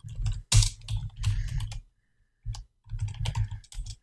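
Typing on a computer keyboard: quick runs of keystrokes, with a short pause about two seconds in.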